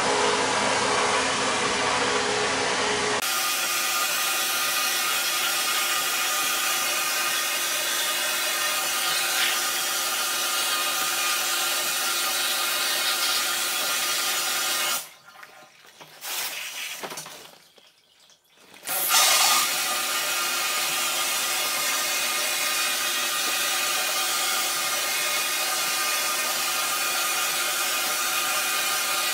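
Wet blasting (vapor honing) cabinet at work: a steady, loud hiss of compressed air driving a water and fine abrasive slurry through the blast nozzle onto an aluminum part. About halfway through, the blast cuts out for a few seconds, then starts again with a short louder burst.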